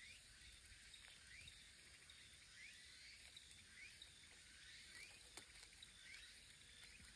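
Near silence: faint outdoor ambience with a short, high rising chirp repeating about every two-thirds of a second.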